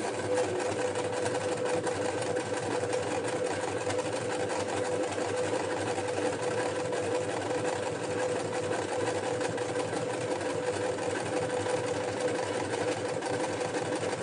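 Domestic electric sewing machine running steadily as it stitches a slippery knit blouse, its needle set slightly lower than normal in the clamp to test whether that stops the skipped stitches.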